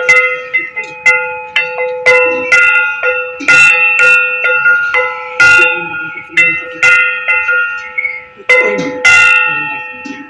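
A brass puja bell rung by hand for the worship, struck irregularly about once or twice a second, each stroke ringing on in several steady tones that overlap.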